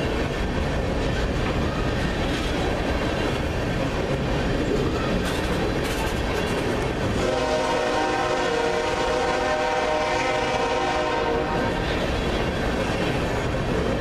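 Tank cars of a crude oil train rolling past close by: a steady rumble and clatter of steel wheels on rail. About seven seconds in, a train horn sounds for about four seconds, then stops.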